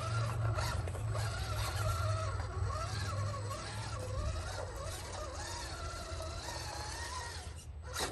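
Redcat Gen8 V2 1/10-scale RC rock crawler's electric motor and geared drivetrain whining as it climbs a wooden ramp, the pitch rising and falling with the throttle. There is a short knock near the end.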